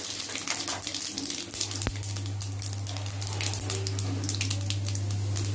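Mustard and cumin seeds with urad and chana dal sizzling in hot oil in a steel kadai for a tempering, with many small crackling pops. A steady low hum runs underneath.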